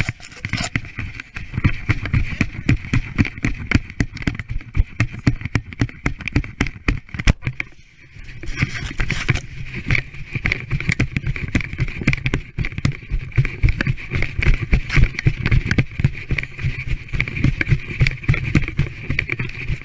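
A sled running over hard-packed snow: a steady scraping hiss from the runners with dense, irregular knocks and rumble as it bumps along. The noise drops off briefly a little before halfway through, then picks up again.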